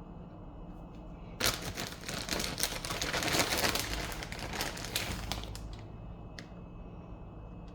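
Packaging crinkling and rustling in the hands for about four seconds, starting about a second and a half in.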